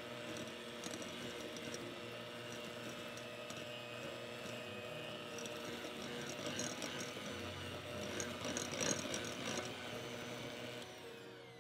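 Electric hand mixer running at medium speed, its wire beaters creaming butter with brown sugar and salt in a glass bowl, with fine ticking from the beaters against the glass. It stops near the end.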